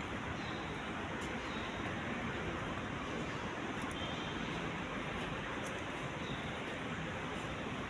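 Steady background hum of distant city traffic, with no distinct events standing out.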